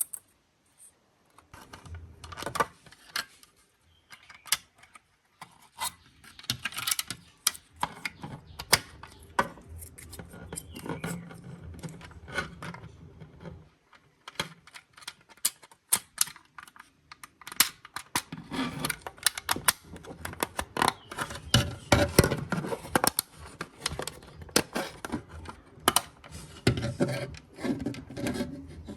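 Hands taking apart a plastic toy car: irregular clicks, taps and rubbing of small plastic parts being handled and pulled apart.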